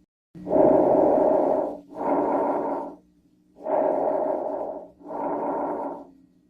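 Bronchovesicular breath sounds over the lung apex: two full breaths, each an inhalation and an exhalation of about equal length with a brief pause between them. These are normal breath sounds for that spot.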